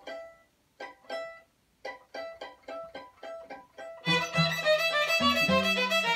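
Violin playing short detached notes in small groups, each note fading quickly. About four seconds in, a cello and a second string instrument join with a low bass line, and the trio plays on, fuller and louder.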